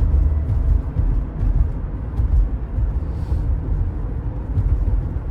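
Car cruising at about 60 mph, heard from inside the cabin: a steady low rumble of road, wind and engine. The engine is still running even though the push-start button has been pressed at speed.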